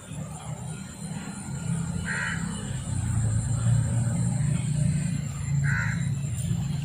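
A crow cawing twice, about three and a half seconds apart, over a steady low rumble.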